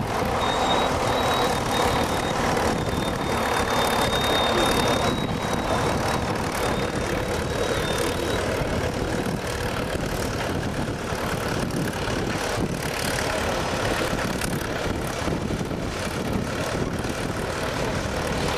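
Menck M40 cable excavator working a backhoe load: its engine runs steadily under load amid the rattle of its cable gear. A thin high whine sounds through the first half.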